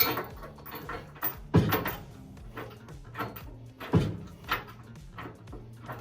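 Several heavy clunks and knocks from the tubular K-member being worked into place under the car. The loudest come at the start, about a second and a half in, and about four seconds in, over a faint steady hum.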